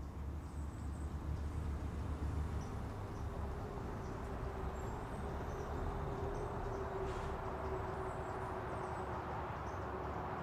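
Steady din of traffic: a low rumble with a broad wash of road noise. Faint high chirps of birds sound over it.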